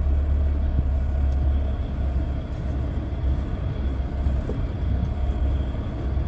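Semi-truck's diesel engine running with a steady low rumble, heard from inside the cab as the truck makes a slow turn.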